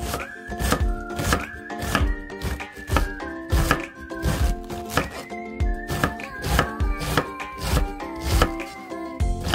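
A chef's knife shredding raw cabbage on a wooden cutting board: quick, uneven strokes, two or three a second, each blade hitting the board. Background music plays underneath.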